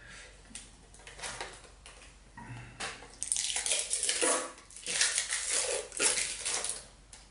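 Plastic packaging rustling and crinkling, with light clicks and knocks as a clear plastic drive enclosure is unpacked and handled. The rustling grows louder about three seconds in.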